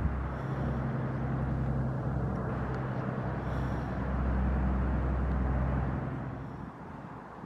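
Low, steady engine hum of a passing motor vehicle over outdoor background noise, fading away near the end.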